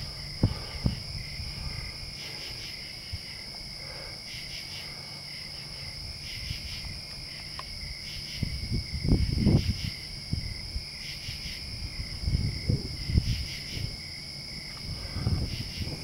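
Night chorus of crickets and other insects: a steady high trilling with recurring groups of pulsing calls. Low rumbles of noise on the microphone come in about nine seconds in and again around twelve to thirteen seconds.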